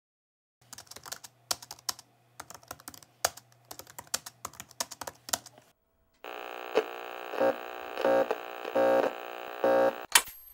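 Rapid, irregular clicking over a faint low hum for about five seconds, like a keyboard typing sound effect. After a short pause comes a steady electronic tone that swells in regular pulses about every three-quarters of a second, ending in a sharp click.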